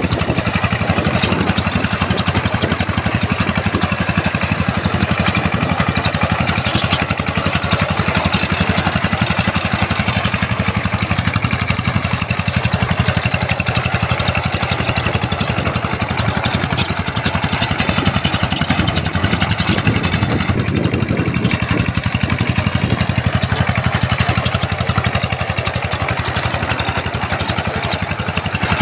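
Two-wheel power tiller's single-cylinder diesel engine running steadily under load, with a rapid, even firing beat, as its rotary tines churn wet paddy mud.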